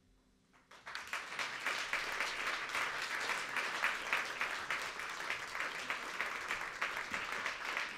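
Audience applauding: a moment of quiet, then dense clapping from many hands breaks out about a second in and keeps going steadily.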